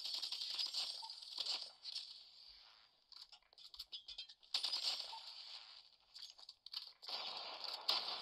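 Shooter game sound effects playing from a smartphone: rattling bursts of rapid clicking shots. One run comes at the start, another about halfway through, and a third near the end, with quieter stretches between.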